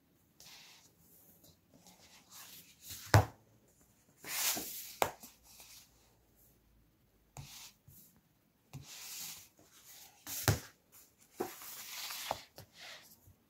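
Paper book pages being turned and slid by hand: a string of brief rustling swishes, with two sharp knocks standing out, about three seconds in and again about ten seconds in.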